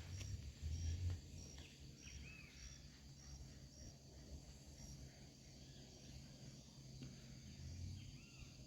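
Outdoor rural ambience: an insect chirping steadily at a high pitch, about one chirp every half second, with a couple of short bird calls. A low rumble swells about a second in.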